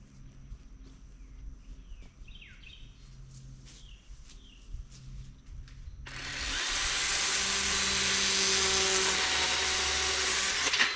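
Electric chainsaw starting up about six seconds in and running at full speed with a steady whine, then shutting off abruptly near the end.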